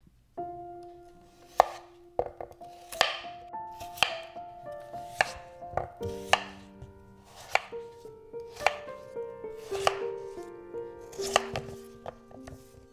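Ceramic kitchen knife slicing through peeled raw potatoes, each cut ending in a sharp knock of the blade on a wooden cutting board, about one cut a second. Soft background music plays underneath.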